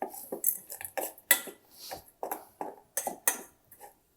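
A metal spoon scraping and clinking in a pan, stirring powdered rock sugar as it heats, in short irregular strokes that thin out near the end.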